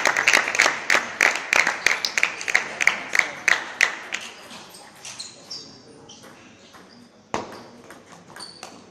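Spectators clapping in a fast, steady rhythm, dying away about four seconds in. After a lull, a single sharp crack of a table tennis ball being struck, then the light clicks of a rally on bat and table near the end.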